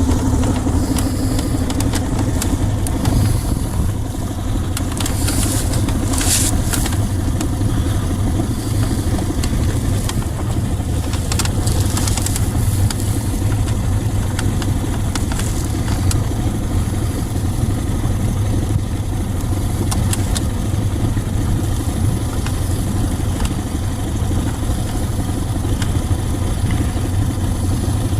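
1969 Johnson 55 hp two-stroke outboard motor running steadily with an even, low engine sound.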